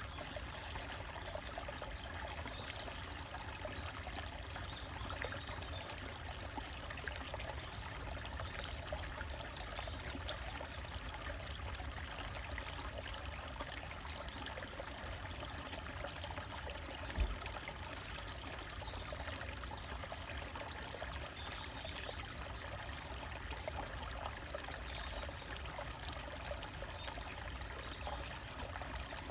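Small forest stream trickling and splashing over rocks, a steady rush of water. Faint bird chirps come now and then, and a single dull low thump sounds a little past halfway.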